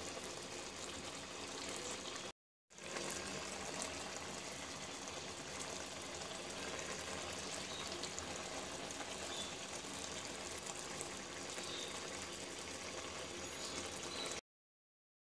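Fish curry simmering and bubbling in a metal pot as its gravy cooks down, a steady bubbling hiss. It drops out for a moment about two and a half seconds in and cuts off suddenly near the end.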